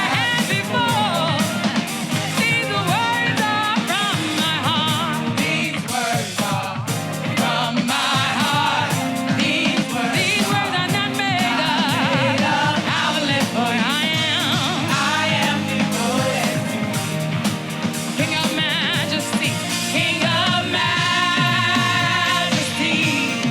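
Live gospel praise-and-worship music: voices singing with wavering, sustained notes over a band with a steady beat.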